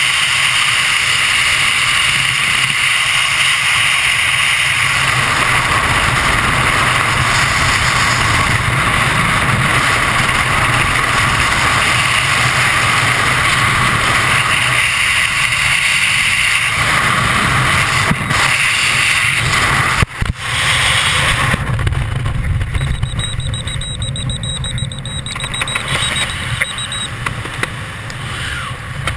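Freefall wind buffeting a skydiver's camera microphone: a loud, steady rush of wind noise. About twenty seconds in it breaks off sharply for an instant, then goes on a little quieter.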